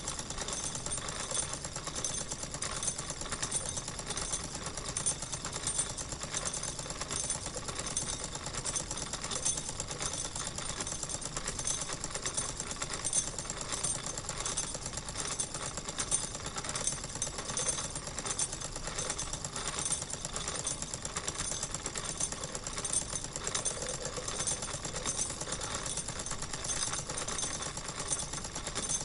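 Wilesco toy steam engine running steadily, a fast, even mechanical clatter.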